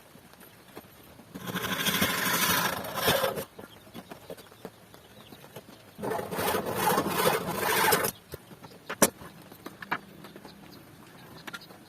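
Hand tool working wood: two spells of scraping of about two seconds each, with scattered light taps and clicks between them and a sharper click near the end.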